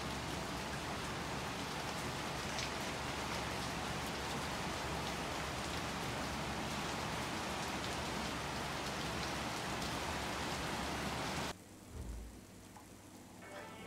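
Steady rain falling, an even hiss that cuts off suddenly about eleven and a half seconds in.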